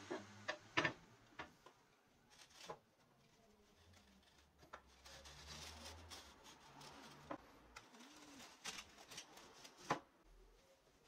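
Scattered light clicks and knocks, several close together in the first second and another sharp one near the end, over a faint hiss that rises and falls.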